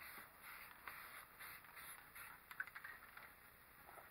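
Faint hiss of an aerosol spray-paint can (Rust-Oleum American Accents satin black) in short repeated bursts, a few a second, applying a coat of paint; the spraying stops a little over two seconds in.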